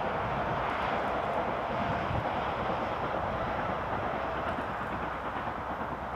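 Steady roar of motorway traffic, with the exhaust beat of BR Britannia Pacific 70013 Oliver Cromwell working hard on a steep climb under it.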